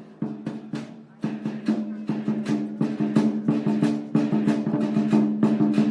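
Asian drums being beaten in a fast, driving rhythm, each stroke leaving a ringing tone. A few separate strikes open it, then after a brief drop about a second in the beats come thick and fast, almost a roll.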